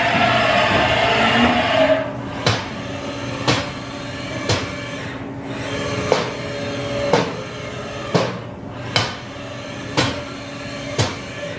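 After a short stretch of dense noise, a run of sharp knocks comes about once a second, some with a short ringing tone, over a steady hum.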